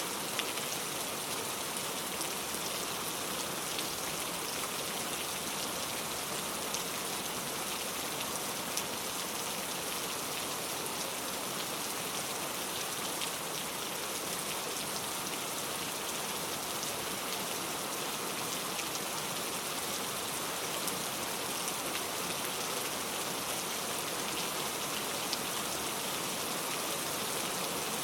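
Steady rain falling, a continuous even hiss with scattered individual drops ticking on a surface. No thunder.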